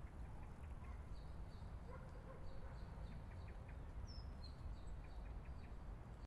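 Faint ambience: a steady low rumble with scattered small bird chirps and calls, and one short falling whistle about four seconds in.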